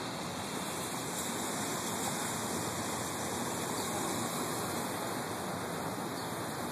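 Steady rushing wash of floodwater on a street, swelling a little around the middle.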